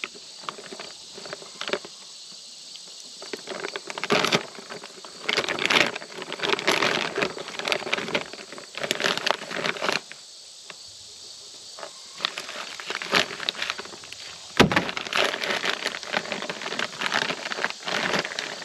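Clear plastic wrapping crinkling and rustling in irregular bursts as it is pulled off a roll of electric poultry netting, with one sharp knock about three-quarters of the way through.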